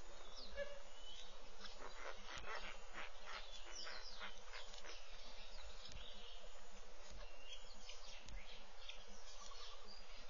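Wild birds chirping and calling, many short overlapping chirps thickest in the first half, over a steady outdoor hiss, with a few soft low bumps.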